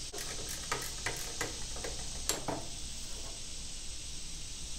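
Socket ratchet wrench clicking in short, irregular runs as bolts are backed out of a riding mower's steering panel.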